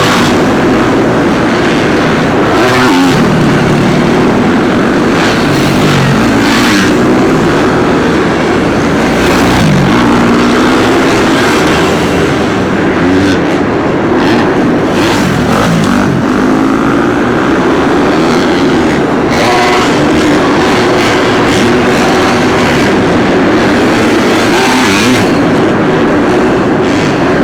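Several dirt bike engines running at once on a supercross track, each revving up and backing off as the riders work through the jumps and turns.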